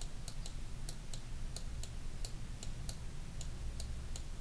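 Computer mouse clicking repeatedly, about three evenly spaced clicks a second, over a low steady hum.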